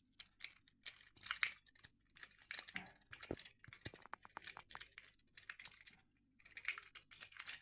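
Irregular small metallic clicks, rattles and light scrapes of homemade lock-picking tools and lock hardware being handled, with a short pause about six seconds in.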